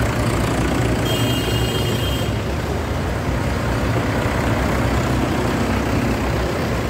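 Several farm tractors' diesel engines running steadily as the tractors drive slowly past close by, with a brief thin high-pitched tone about a second in.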